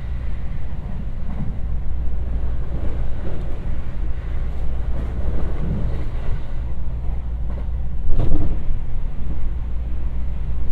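Steady low rumble of a JR West 225-series electric train running at speed, heard from inside the passenger car. About eight seconds in, a sudden loud whoosh as an oncoming train passes close alongside.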